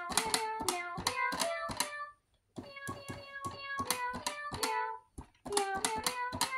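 A cat-shaped toy keyboard (B. Toys Meowsic) plays rapid runs of short electronic notes as its keys are pressed. The notes come in three quick bursts with brief pauses between them.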